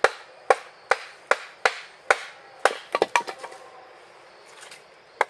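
Bark River Trakker chopping knife striking a small piece of firewood against a wooden stump chopping block: about ten sharp wooden chops in quick succession over the first three seconds, then a pause and one more chop near the end.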